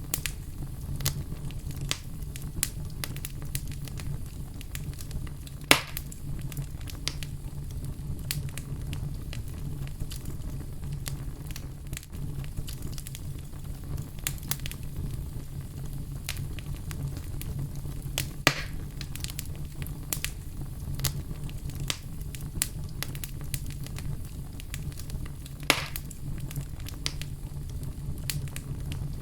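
Wood fire crackling in a fireplace: frequent small crackles over a steady low rumble, with three louder pops, about 6, 18 and 26 seconds in.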